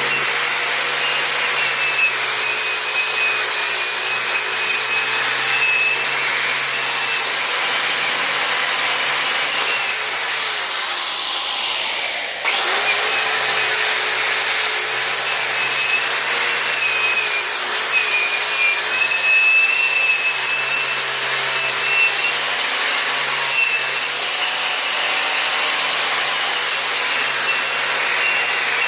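Electric grinder running steadily, its motor whine wavering as it works paint off the metal. About ten seconds in it slows and sinks in pitch, then picks back up to full speed about twelve seconds in.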